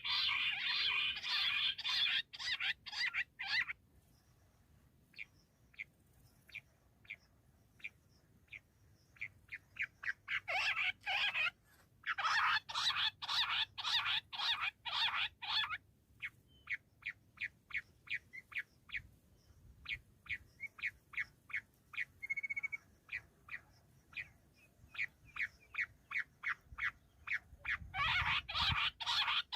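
Bush quail calling: trains of short, rapidly repeated notes, thickening into dense, overlapping runs near the start, in the middle and near the end, with sparser evenly spaced notes between them.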